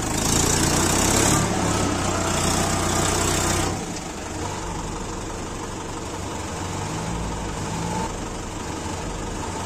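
Diesel farm tractor engine run hard as it works to pull free of deep, sticky paddy-field mud, then throttled back to a quieter, steady run a little under four seconds in.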